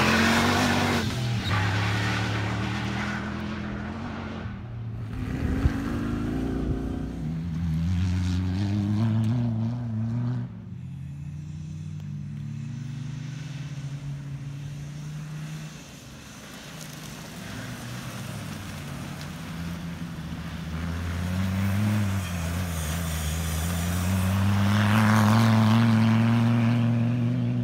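Comp safari off-road race cars' engines revving hard, the pitch climbing and dropping with throttle and gear changes. The sound switches abruptly twice, about ten and sixteen seconds in, as one car gives way to another.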